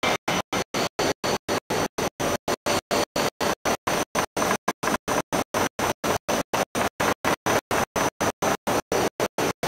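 Harsh noise chopped into even bursts about five times a second, cutting to silence between each burst: a stuttering audio fault rather than a natural sound.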